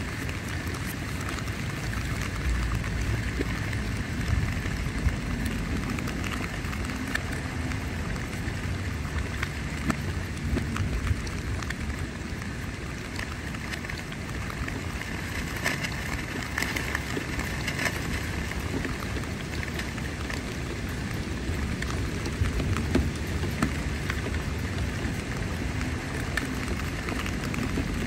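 Steady rain falling on a tent's fabric, heard from inside the tent, with many single drops ticking through the even hiss.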